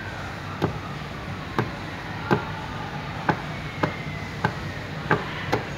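Eight sharp, single knocks on a tabletop, roughly one every three-quarters of a second, coming a little closer together toward the end.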